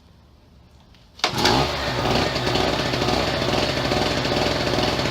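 A Pulsar PG1202S two-stroke generator starts up about a second in, with a brief surge, then runs steadily with a droning note. The engine is warm and has no load on it.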